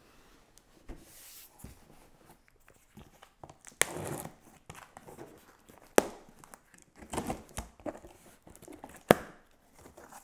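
A box cutter slicing and scraping through packing tape along the top seam of a cardboard box, with short tearing sounds and three sharp clicks or knocks against the cardboard.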